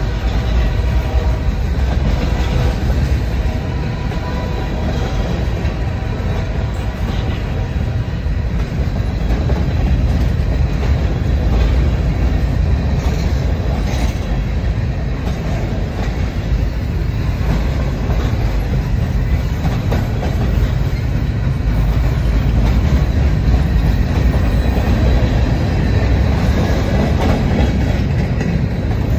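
Freight cars rolling past close by on the rails: a steady, loud low rumble of steel wheels and trucks on the track.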